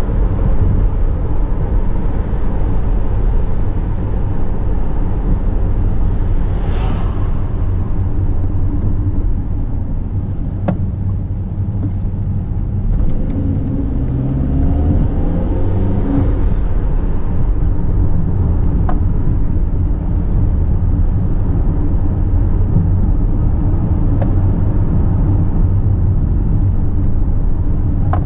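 Car engine and road noise heard from inside the cabin, a steady low rumble; about 13 seconds in, the engine note rises for a few seconds as the car accelerates.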